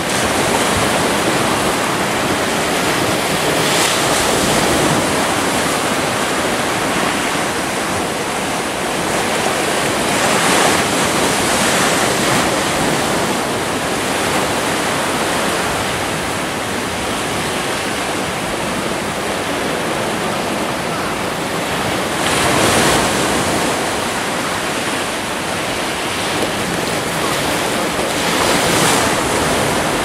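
Sea surf washing and breaking among shoreline boulders: a continuous rush of water that swells into louder surges every several seconds, the strongest a little past the two-thirds mark.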